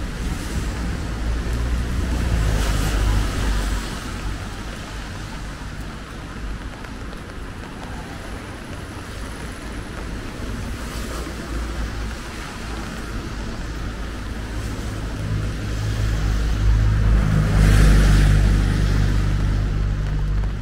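Cars driving past on a wet street, tyres hissing on the wet road over an engine hum. One passes about two to three seconds in, and a louder one builds near the end.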